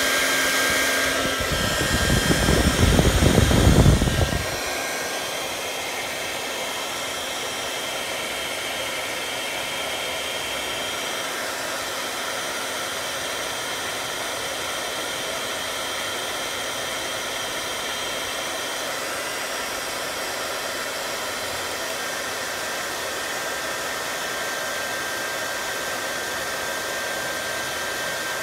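Hot-air blower running steadily, heating a car's intake air temperature sensor and a thermocouple. For a couple of seconds near the start there is a louder, deeper rush, as of the air stream hitting the microphone.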